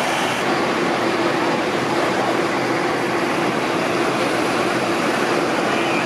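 Fire trucks' diesel engines running steadily at a fire scene, a dense even mechanical noise with a faint steady hum underneath.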